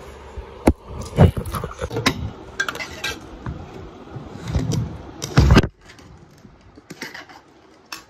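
Spoons and plates clinking and knocking during a meal, scattered short clicks with a heavier thump about five and a half seconds in.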